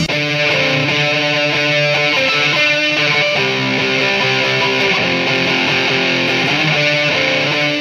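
Music: a guitar playing held chords and notes, with no drums or bass underneath.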